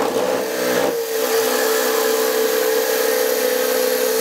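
A high-speed electric motor switches on, spins up within about a second, then runs at a steady high whine.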